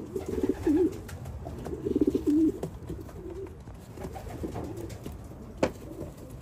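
Racing pigeons cooing in a cage: two loud warbling coos in the first half, then fainter ones. A single sharp click comes about five and a half seconds in.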